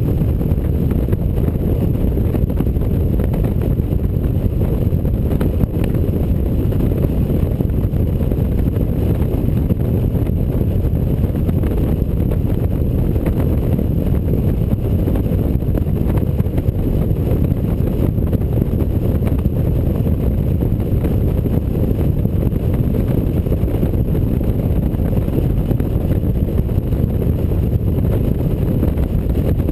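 Touring motorcycle cruising at steady highway speed: a constant low rush of wind on the microphone mixed with engine and road noise, with no change in pace.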